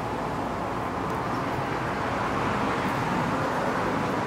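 Steady rushing background noise with no distinct events, slowly getting a little louder.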